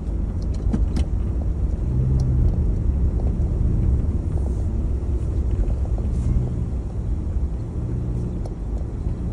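Car driving slowly: a steady low engine and tyre rumble, a low hum that comes and goes, and a few scattered small clicks.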